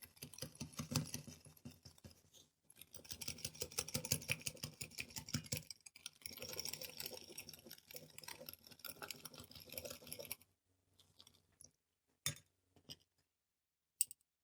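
Instant coffee, sugar and water being beaten by hand with a hand beater into a thick, fluffy whipped coffee: quick, even strokes that stop about ten seconds in, followed by a few separate taps.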